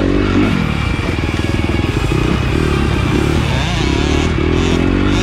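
Motocross bike engine running under throttle on a dirt track, with music playing over it.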